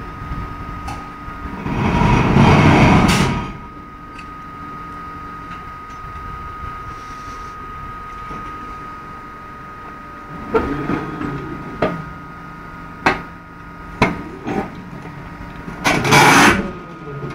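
Large electric crawler mining shovels at work: a steady motor hum with a thin high whine, two loud bursts of rushing noise, one about two seconds in and one near the end, and a string of sharp metallic clanks in the second half.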